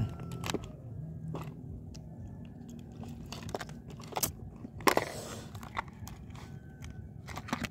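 Irregular knocks and clicks of paddling and of gear shifting in a small boat, over a faint low steady hum.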